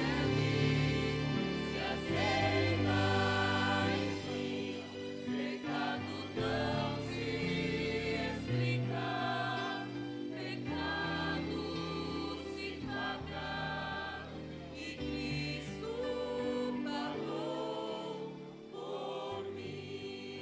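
Church vocal group of women and men singing a gospel song together in harmony, over instrumental accompaniment with a bass line beneath.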